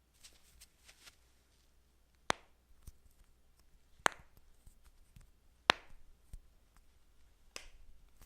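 Human joints cracking: three sharp pops about a second and a half apart, the third the loudest. Faint rustling comes first, and a softer crack follows near the end.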